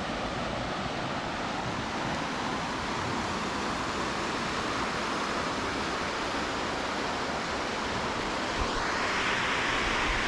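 Steady rush of flowing river water, with a brighter hiss joining about nine seconds in.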